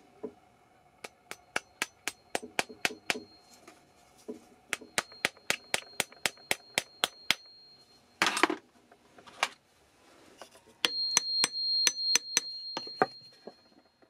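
Small hammer tapping a pin punch to drive a 1/16-inch brass pin through a wooden whirligig arm and its steel shaft. The taps are light and quick, about three a second, with a faint metallic ring. A couple of louder clatters come in a short pause partway through, then another run of taps.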